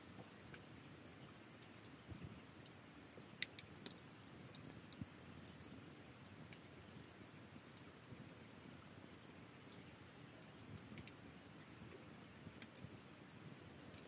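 Firewood crackling as it burns in a folding metal fire stand: irregular sharp snaps and pops, sometimes several in quick succession, over a steady low background.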